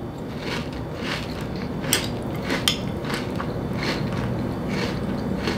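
Close-up chewing of a mouthful of cereal with milk: a run of brief crunches and clicks.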